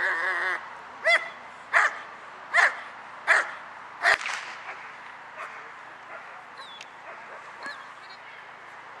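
German Shepherd barking hard at a decoy in bite-work training, five sharp barks about three-quarters of a second apart, after a brief high, wavering whine at the start.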